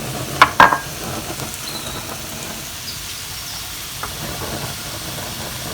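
Chopped onion and garlic sizzling steadily in a frying pan of bacon and steak drippings, with two sharp knocks about half a second in and a lighter one later.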